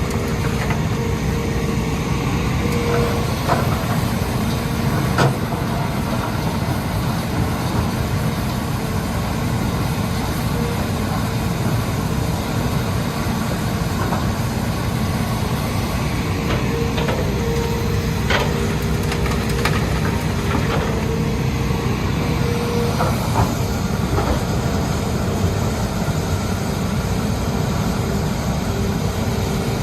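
Hitachi Zaxis 210 excavator's diesel engine running steadily, with a steady whine over the low rumble and a few sharp metallic knocks.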